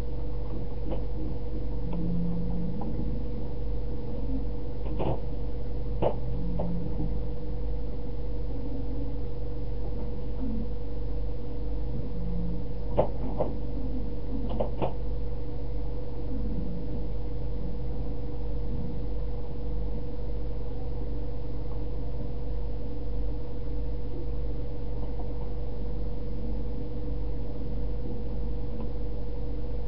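Steady low electrical hum with a constant tone above it, the background noise of a webcam microphone, broken by a few faint clicks.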